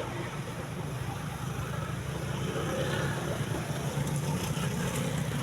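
Bus engine running with a steady low drone, getting slowly louder as it draws closer.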